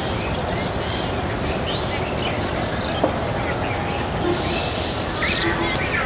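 Small birds chirping and calling over steady background noise, with one sharp knock about halfway through.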